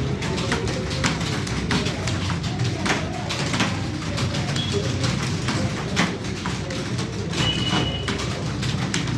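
Computer keyboard being typed on: irregular key clicks, several a second, over a steady low hum.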